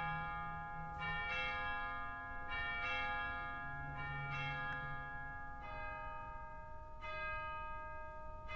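Bells ringing a slow sequence of struck notes, a new note about every second or so, each ringing on and overlapping the ones before.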